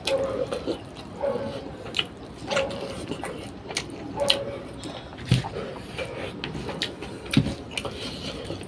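Close-up eating sounds: chewing and wet lip smacks with irregular sharp mouth clicks, and two dull low thumps in the second half.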